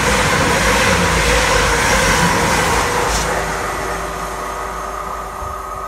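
Class 222 Meridian diesel multiple unit running through at high speed, its rush of wheel and rail noise fading steadily as the train draws away.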